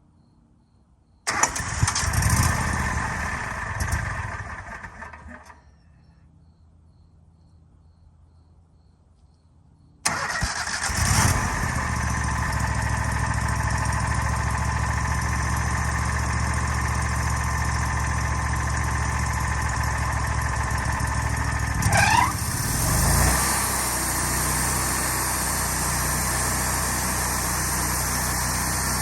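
Sawmill's gasoline engine starting after its fuel had been left shut off: it fires about a second in, runs a few seconds and dies away, then about ten seconds in starts again and settles into a steady run, with a short rising whine a little past twenty seconds.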